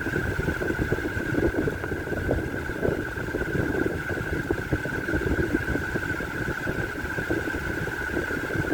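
Toofan electric stand fan running steadily: a constant high-pitched whine over an uneven low rumble of moving air.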